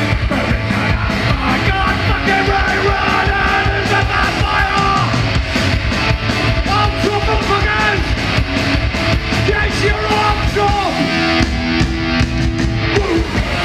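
A live rock band playing loud: electric guitars, drums and a singer's vocal lines over a constant drum beat.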